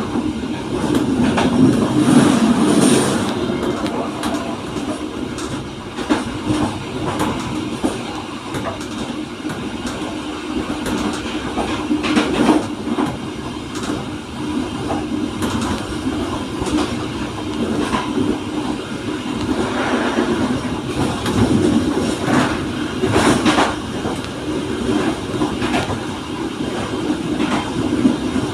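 Passenger train running along the track, with a steady rumble and hum and irregular clicks as the wheels pass over rail joints.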